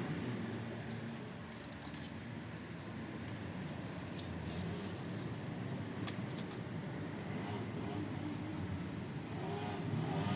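Mini paint roller loaded from its tray and rolled over the caravan's aluminium panels, giving a faint sticky crackle with scattered light ticks over a low steady hum. Near the end a rising, engine-like drone comes in.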